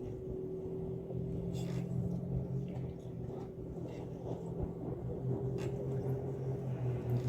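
An engine or motor running steadily: a low hum with a constant tone above it, pulsing slightly, with faint scattered clicks.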